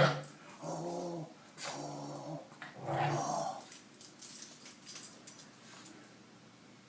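A dog giving three short, low play growls in the first half, each under a second long.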